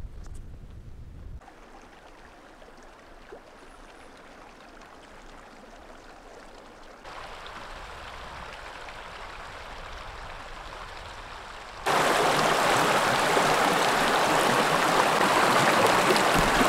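A hiker's footsteps in snow for about the first second. Then a mountain creek flowing as a steady rushing noise, faint at first, louder from about seven seconds in, and much louder and close from about twelve seconds in.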